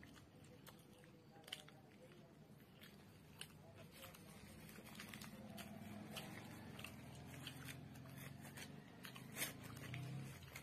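Faint close-up chewing of a bite of egg roll and paper wrapping crinkling and tearing as it is peeled back from the roll: scattered small crackles, one sharp crackle near the end the loudest, over a faint steady low hum.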